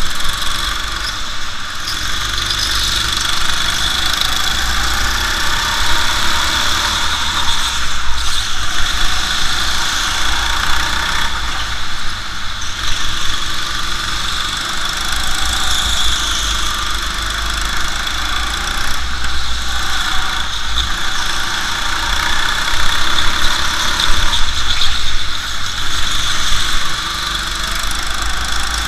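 Go-kart engine running at racing speed, heard on board the kart, with tyres squealing on the indoor track through the corners. The engine note rises and falls as the kart brakes and accelerates.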